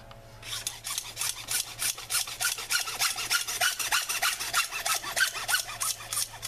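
Hand hacksaw cutting through white PVC pipe with quick, steady back-and-forth strokes, starting about half a second in.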